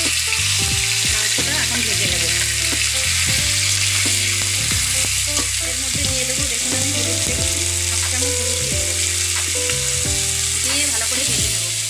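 Boneless chicken pieces sizzling steadily as they fry in hot mustard oil in a kadai. A metal spatula scrapes and clacks against the pan again and again as the pieces are stirred.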